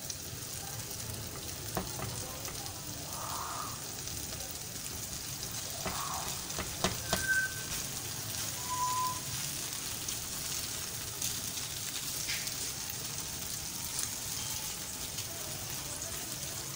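Egg-soaked bread slices (French toast) sizzling steadily as they fry on a flat griddle pan, with a few light taps of the spatula against the pan.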